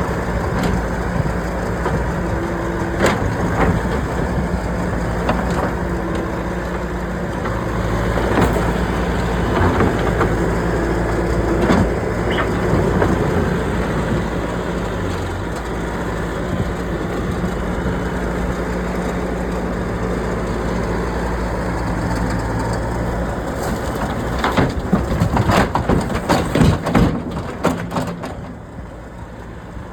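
Diesel engine of heavy equipment running steadily, with scattered knocks and a rapid run of clanks and cracks near the end.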